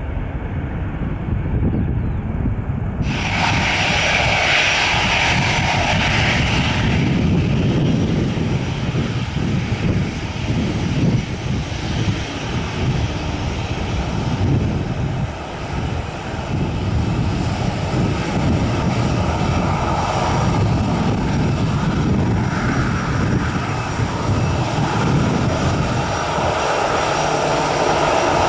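Jet engine noise of Airbus airliners with CFM56 engines. For the first few seconds an A321 climbs away after takeoff; from about three seconds in, an A320 taxis with its engines at low thrust, giving a steady whine over a rumble. The sound is brightest for a few seconds just after the change.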